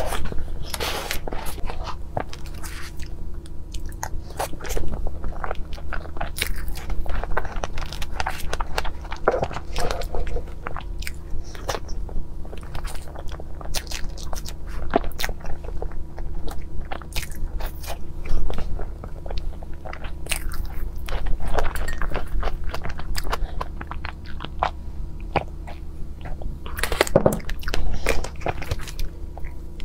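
Close-miked mouth sounds of eating strawberry crepe cake with whipped cream: soft chewing with many small wet clicks and lip smacks at an uneven pace, over a steady low hum.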